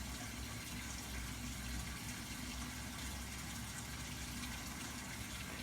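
Steady low hum with a faint hiss, unchanging throughout, with no distinct events.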